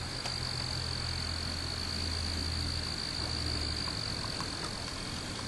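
A steady high-pitched whine with a low hum underneath, and a few faint ticks about four seconds in.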